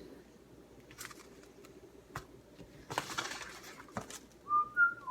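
A few light clicks and knocks, then near the end a run of short, steady whistled notes.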